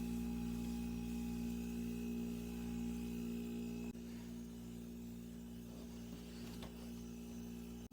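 Steady low electrical hum with a faint higher whine over the first half, cutting off about four seconds in. Faint soft handling or rubbing sounds come near the end.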